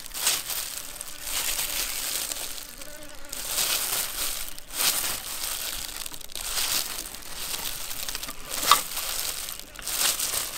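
Honeycomb being squeezed by hand in a plastic glove over a metal mesh strainer: the wax comb crushes and the glove crinkles in irregular bursts.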